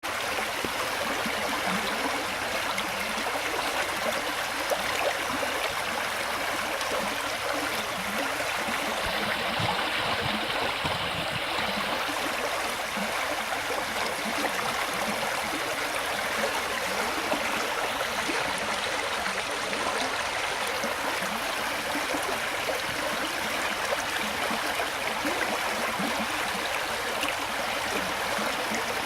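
A small brook babbling, shallow water splashing and gurgling over stones in a steady, continuous rush.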